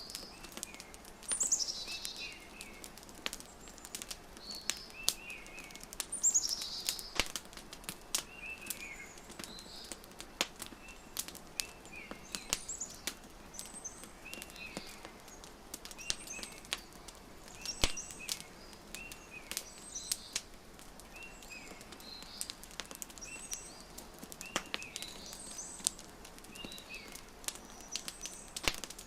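Wood fire crackling with frequent sharp pops, layered with small birds chirping in short repeated phrases. A bright, falling call sounds about a second and a half in and again about six seconds in.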